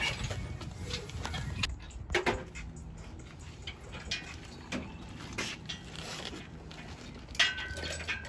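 Scattered light clicks and knocks over a low steady hum.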